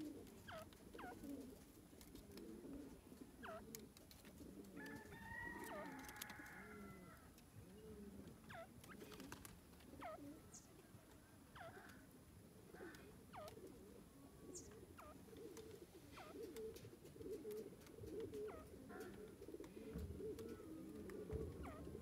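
Grey francolin giving soft, low clucking calls, almost continuous and faint. Short falling chirps from small birds come every second or two, and a higher, wavering call is heard about five seconds in.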